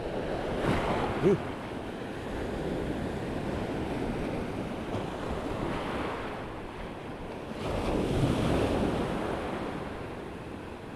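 Surf breaking and washing up a beach, with wind buffeting the microphone; the wash swells about a second in, around six seconds and again around eight seconds. A brief short tone sounds about a second in.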